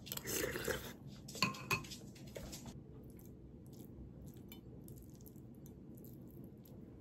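Metal spoon scraping and clinking on a ceramic plate while scooping fried rice: a short scrape at the start, then two sharp clinks a quarter second apart about a second and a half in, followed by faint light taps.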